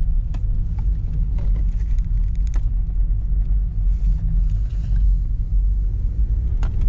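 Inside the cabin of a 2010 Honda Civic, the steady low rumble of the engine and the road while it drives slowly through a U-turn, with a few faint clicks and knocks.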